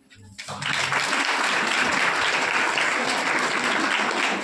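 Audience applauding, starting about half a second in and continuing steadily.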